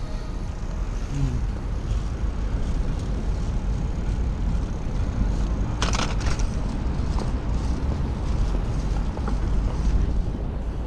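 Wind buffeting the microphone and rolling noise from a bicycle moving along a city street, a steady low rumble with a short clatter about six seconds in.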